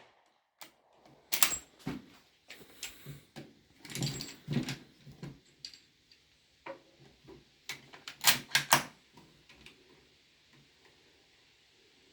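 Lee Enfield No.1 Mk III bolt-action rifle, rechambered to .45 ACP, having its bolt worked between shots: irregular metallic clicks and clacks as the spent case is cleared and the next round chambered, with the loudest clacks about eight seconds in.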